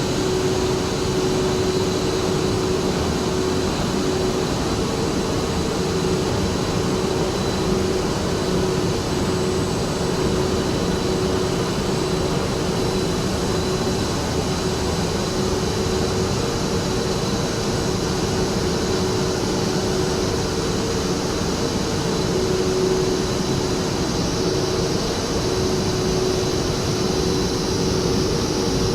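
Cable-making machinery running steadily on a factory floor: a continuous mechanical hum with a few steady whining tones, one mid-pitched and one high.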